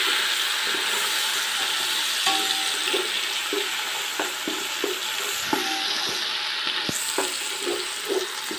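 Ground shallot, ginger and garlic paste sizzling in hot oil and ghee in a metal pot, with a steady frying hiss. The spatula stirring it scrapes and taps against the pot, about twice a second.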